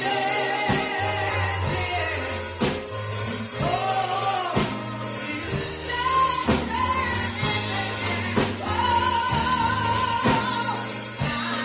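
Gospel music: a singer holding long, wavering notes over a band with bass and percussion hits.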